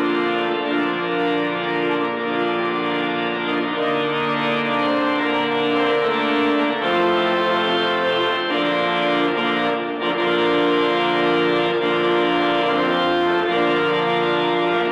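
Organ music: slow, sustained chords that change every second or two.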